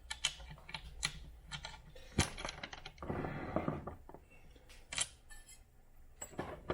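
Light metal clinks and knocks as a metal bracket is handled and set into a small bench vise, with one sharper knock about two seconds in and a short scraping stretch a second later.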